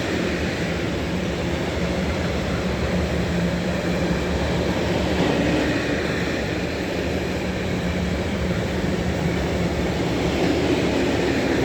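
A train running past on the line, a steady noise with a low steady hum underneath.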